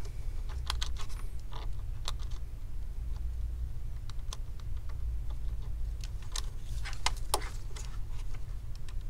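Scattered light clicks and crinkles from gloved hands handling a foil-covered flat LCD ribbon cable and working it into its connector on a computer motherboard, over a steady low hum.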